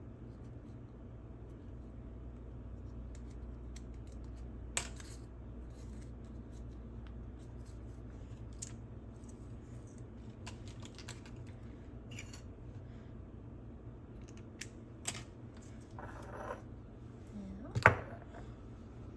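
Small clicks and taps of craft items (pen, twine spool, scissors) being handled on a granite countertop, over a steady low hum. Near the end a sharp knock as a glass jar is set down on the counter.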